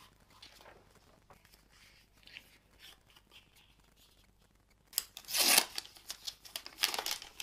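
Faint rustling of a paper courier mailer and plastic packaging as a packed jacket is pulled out, then, about five seconds in, loud crinkling of the clear plastic poly bag in a run of quick bursts as it is handled.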